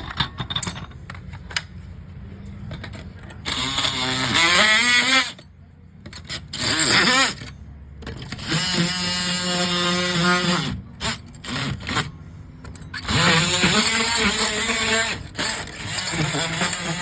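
Handheld power tool running in several bursts of a few seconds each, its motor pitch rising and falling with the trigger and load, with a few knocks of handling before the first burst.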